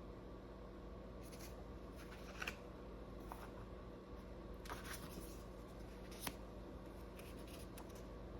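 Faint rustles and light clicks of tarot cards being handled, a few soft touches spread over several seconds.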